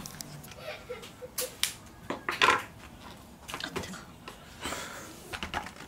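Disposable aluminium foil loaf pans clicking, knocking and crinkling as they are handled on a wooden cutting board, with a knife scraping around the inside of a foil pan to loosen the baked loaf. The crinkling is loudest about two and a half seconds in.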